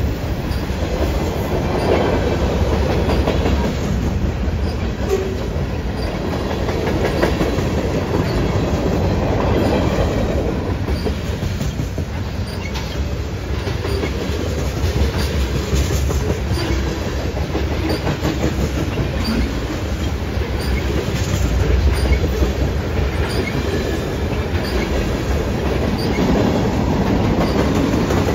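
Freight cars of a mixed freight train rolling past at trackside: a steady rumble and clatter of steel wheels on the rails, with a light regular clicking about once a second.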